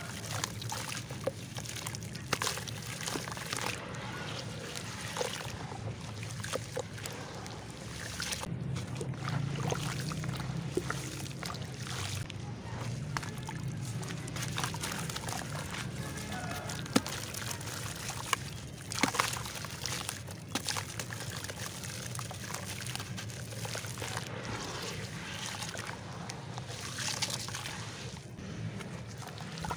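Wet, stony clay crumbling in the hands and falling in pieces into a plastic tub of water, with crackling grit, sloshing and dripping as the hands press and stir the mud in the water.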